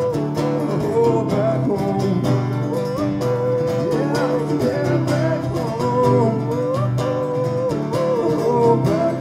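Acoustic guitar strummed in a steady rhythm, with a man's voice singing a wordless melody line over it.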